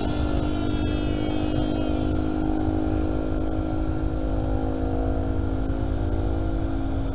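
Electric RC airplane's motor and propeller buzzing in flight, a steady pitched drone that wavers slightly in pitch as the plane moves, over a low rumble.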